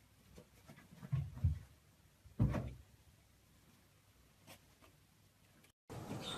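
A few dull thumps and light taps in a quiet room: two soft knocks about a second in, a louder thump about halfway, and scattered faint ticks.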